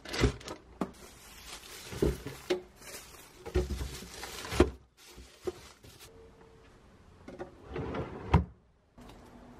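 Plastic bags of fruit rustling and bumping as they are packed into a plastic refrigerator crisper drawer. Near the end the drawer slides shut with a sharp knock.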